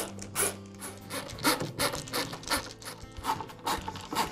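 Hand screwdriver driving screws into the plastic impeller housing of a leaf blower: a run of short, irregular scraping clicks, about two or three a second, as the screws turn and thread into the plastic.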